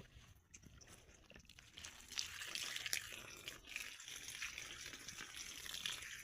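Water splashing and pattering onto freshly planted garden seedlings and soil as they are watered, coming in about two seconds in and running on unevenly.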